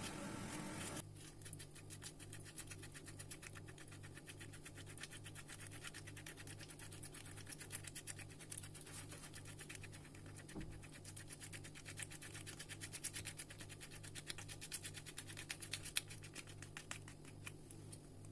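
Rapid, even scratching as gel is scraped out of pieces of aloe vera leaf by gloved hands, over a low steady hum.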